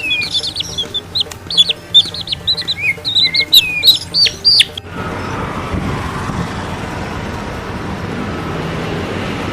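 Birds chirping in many quick, high, sweeping notes for about five seconds, then an abrupt cut to a steady noisy rush with a low rumble.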